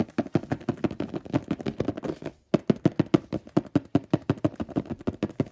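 An improvised drumroll: hands tapping rapidly on a tabletop, about ten knocks a second, with a short break about two and a half seconds in before a louder second run.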